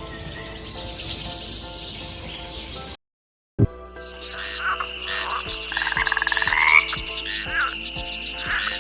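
Frogs calling: a fast, high pulsed call that speeds up into a trill, then, after a brief gap, a steady high trill with chirps over it.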